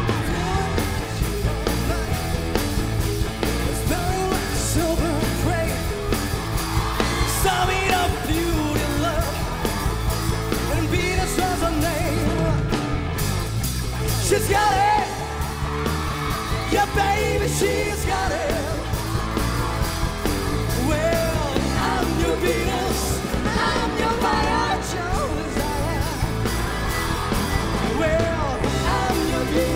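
Live rock band performance, with a male singer's lead vocal over a full band.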